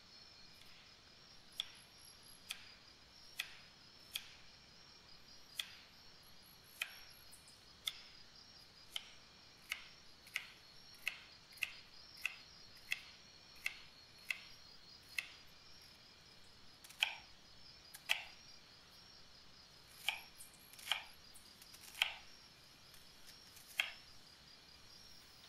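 Chef's knife chopping celery and onion on a wooden cutting board: single sharp knocks of the blade against the board, about one a second. About two-thirds of the way through the chops turn heavier and louder.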